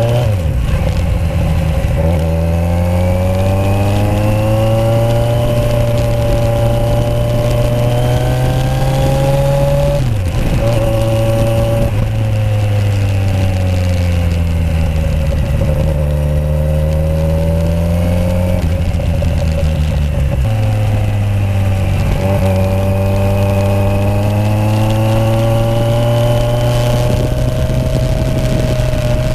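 Kawasaki Z1000SX inline four-cylinder engine through TOCE three-port aftermarket exhausts, heard from the rider's seat while riding. The engine note climbs as it accelerates and drops back several times, at gear changes and when easing off, then builds again.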